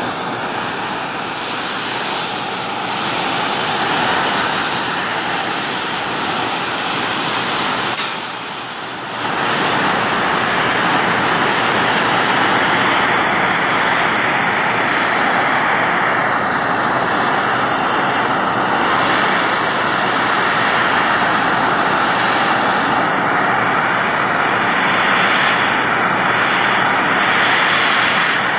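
Handheld gas torch flame running with a steady roar as it is played over raw steel plate. The roar drops briefly about eight seconds in, with a click, then comes back.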